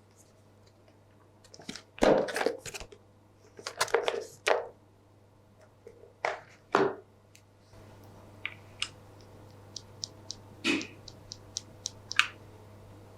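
Epomaker Wisteria linear mechanical keyboard switches pressed and released, giving irregular clacks, some in quick clusters, with lighter single ticks in the second half.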